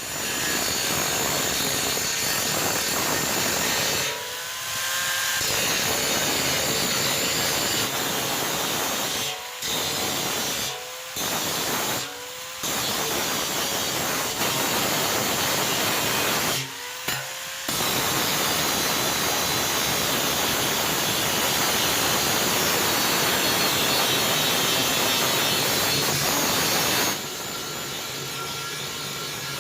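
A power tool running hard in long stretches, stopping and restarting about five times, its pitch sliding down and back up at each stop. It is quieter for the last couple of seconds.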